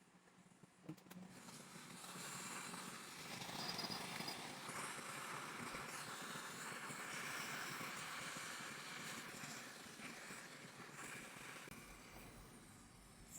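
Hot air rework station blowing a steady hiss of air, used to desolder a tiny surface-mount current-sensing resistor on a laptop logic board. It starts just after a faint click about a second in and eases off near the end.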